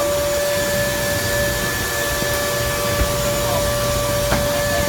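Stone flour mill machinery running: a steady mechanical drone with a constant whine over it.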